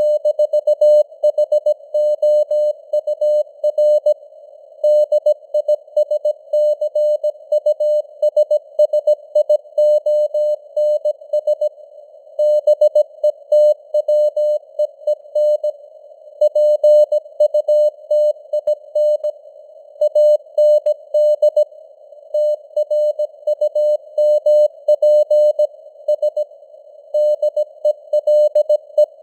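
Morse code sent at 17 words per minute as a single steady beep tone keyed on and off in dots and dashes, over a narrow hiss of simulated radio receiver noise. The code spells out news headlines.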